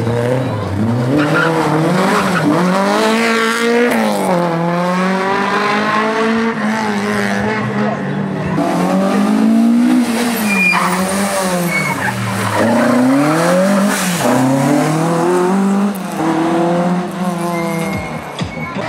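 Slalom competition car's engine revving hard and dropping back over and over as it accelerates, brakes and turns through the course, with brief tyre squeals.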